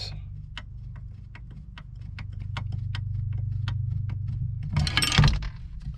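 Quick clicks from a screwdriver backing out the loose screws of a steering wheel's mounting hub, coming faster as they go, over a steady low hum. About five seconds in there is a louder clatter.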